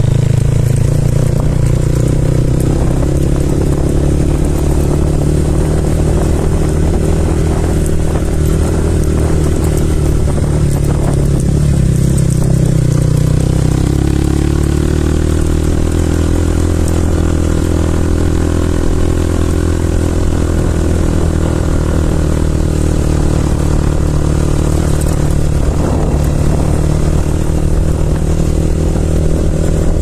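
Motorcycle engine running steadily as the bike rides along a rough dirt track; the engine note rises and falls briefly about twelve to fourteen seconds in, then holds steady again.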